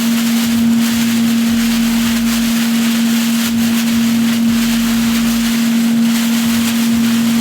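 Chicken frying in hot oil: a constant sizzling hiss over a steady low hum.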